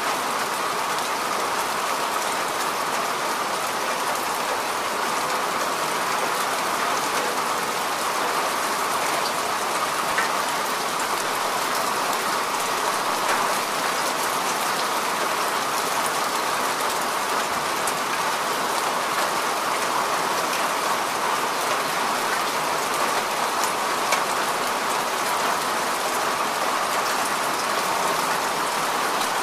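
Steady heavy rain: an even, continuous hiss with scattered sharp ticks of single drops, with no thunder.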